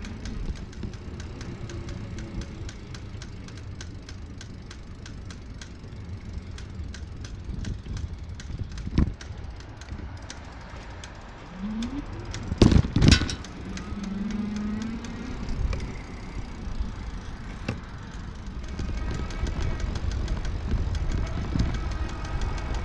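Riding noise from a Pedego e-bike on city streets: steady wind and road rumble with a rattle of light clicks. A little past halfway come two loud knocks in quick succession, and near the end a steady hum with a whine in it joins the rumble.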